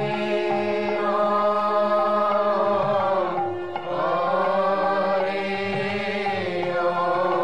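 Devotional chant music: long held, gently wavering notes over a steady low drone, pausing briefly about three and a half seconds in.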